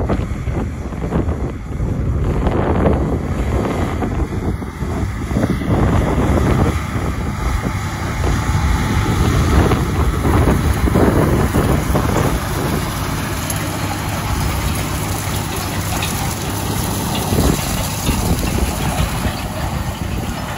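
John Deere 9570R diesel tractor running under load as it pulls a Humdinger 480 chain disc harrow through dry stubble, the chained discs rattling and scraping through the soil. Wind buffets the microphone, most strongly in the first few seconds.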